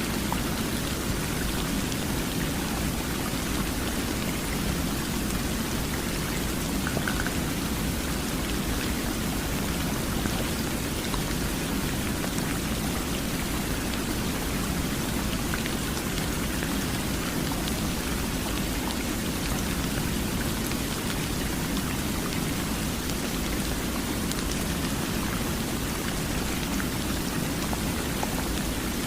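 Steady rain: an even, unchanging hiss, fullest in the lower range, with faint scattered drop ticks.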